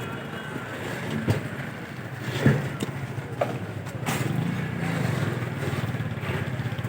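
Street traffic with a motor running steadily, its hum getting louder about halfway through. A few sharp knocks come through it, the loudest about two and a half seconds in.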